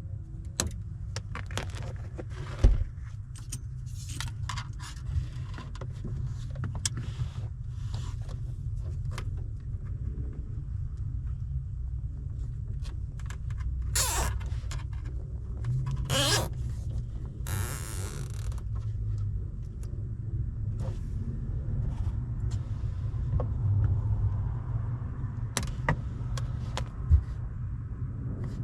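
Scattered clicks, small knocks and short rustling swishes from hands working wiring and plastic dash parts, with a few louder swishes in the middle, over a steady low rumble.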